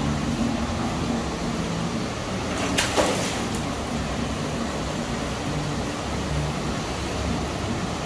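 Steady outdoor background noise, a continuous hiss over a low rumble, with one brief sharp click about three seconds in.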